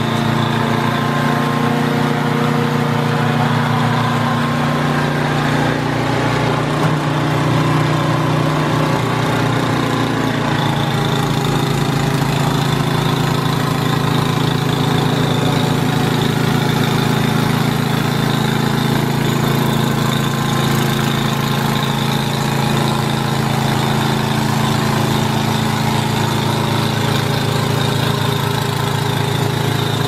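Two-stage snowblower's engine running steadily at working speed while the machine throws snow out of its chute.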